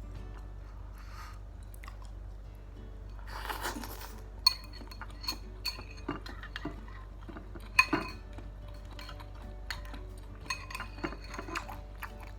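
Cutlery clinking against a bowl during a meal of chicken noodles and meatballs: a run of sharp, ringing clinks starting about a third of the way in, the loudest two near the middle.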